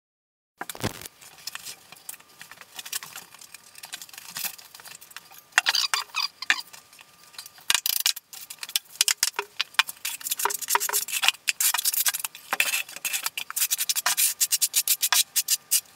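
Steel notched trowel scraping and combing thinset mortar across a floor: a quick run of rasping strokes, starting about half a second in.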